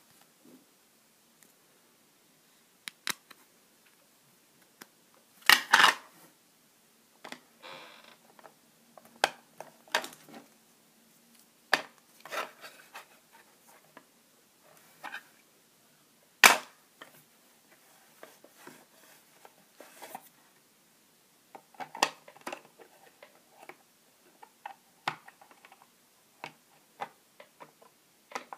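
Irregular plastic clicks and knocks from a PVC figure being handled and fitted onto its black plastic display base and support rod. The two loudest are sharp knocks about five and a half seconds and sixteen seconds in.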